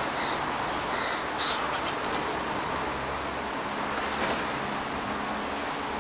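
Young hooded crow giving a few short, raspy calls in the first two seconds.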